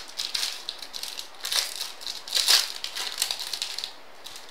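A foil wrapper on a pack of baseball cards being torn open and crinkled, in several rustling bursts. The loudest comes about two and a half seconds in, and it stops shortly before the end.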